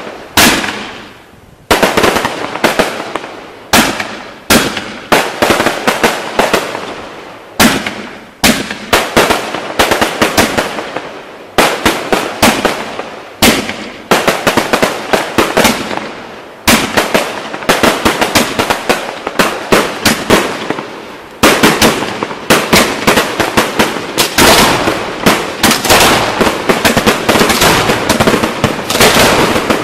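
Professional fireworks display heard close to the launch area: a rapid run of loud shell bursts, roughly one or two a second, each trailing off into crackle. From about two-thirds of the way in the bursts come thicker and the noise hardly lets up.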